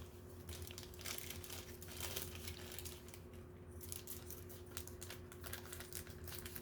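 Hands handling a small plastic toy doll and its packaging: light rustling and many small, quick clicks and taps, over a steady low hum.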